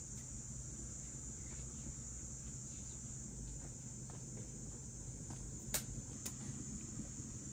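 Steady high-pitched chirring of insects, with two sharp clicks about three-quarters of the way through.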